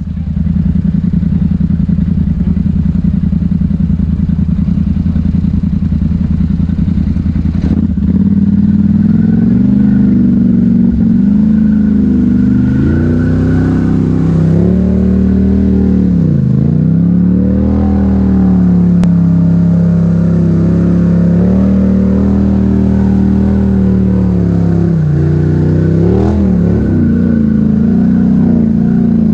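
Polaris Sportsman 1000 ATV engine running at a steady note. It gets louder about eight seconds in, and its pitch dips and recovers briefly twice, once just past halfway and once near the end.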